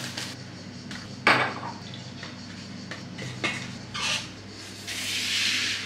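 Plastic toiletry bottles being set down and knocked against each other in a wicker basket on a marble counter. A sharp clack comes about a second in, a few lighter knocks follow, and a hissing rush lasting about a second comes near the end. A faint steady low hum runs underneath.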